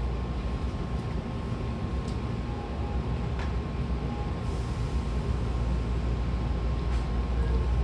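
Hankyu 1000 series electric train pulling out of the station, heard from inside the car by the door. A steady low running rumble grows gradually louder, with a thin steady high tone and a few faint clicks over it.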